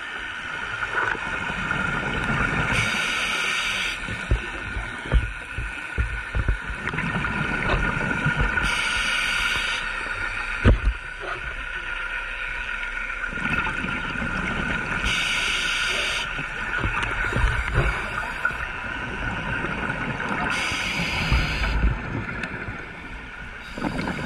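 Scuba regulator breathing underwater: a hiss of inhalation about every six seconds, each lasting about a second, with bubbling exhalation between. A few sharp knocks, the loudest about eleven seconds in.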